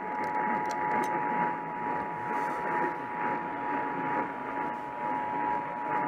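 Emergency Alert System attention signal: two steady tones sounding together, played through an AM radio's speaker over a haze of reception static. It marks the start of an emergency alert, here a required monthly test.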